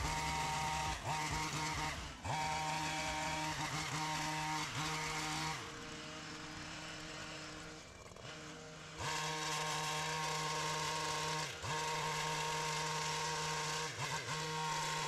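Stihl two-stroke petrol hedge trimmer running at high revs as it cuts, with a few brief dips in revs. In the middle it eases off to a quieter idle for about three seconds, then revs up again.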